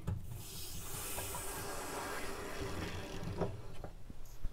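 Water hissing as the supply is opened to a Watts 909 1-inch reduced-pressure backflow assembly: a little initial spit as the assembly pressurizes, dying away about three and a half seconds in.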